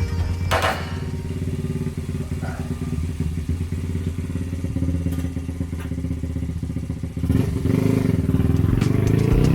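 Honda Gorilla's small single-cylinder four-stroke engine running steadily, then revving up, louder and rising in pitch, from about seven seconds in. A brief knock about half a second in.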